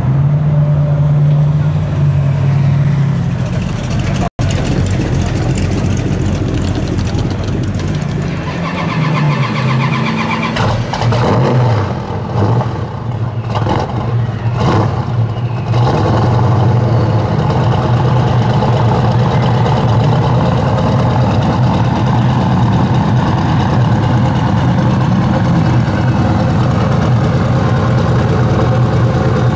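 Supercharged 440 big-block V8 of a 1972 Plymouth 'Cuda running through its exhaust. The revs rise and fall in several quick throttle blips in the middle, and the engine then settles back to a steady idle.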